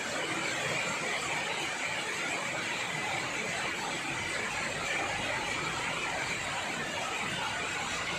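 Heavy rain falling steadily as a constant hiss, with a faint steady high tone running through it.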